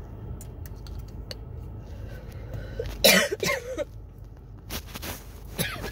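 A person's coughing fit, set off by a tickle in the throat. A low rumble with faint small clicks gives way to a cluster of two or three loud coughs about halfway through, then a softer cough, and another starts right at the end.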